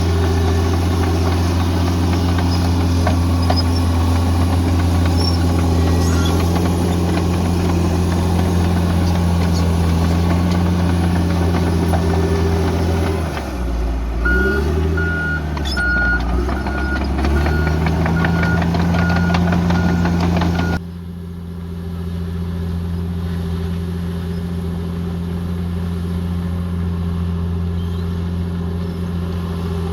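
Diesel engine of a heavy earthmoving machine running steadily. About halfway through its pitch sags and then climbs back. Then a reverse alarm beeps at a steady pace for several seconds. The sound drops abruptly about two-thirds of the way through, and the engine carries on more quietly.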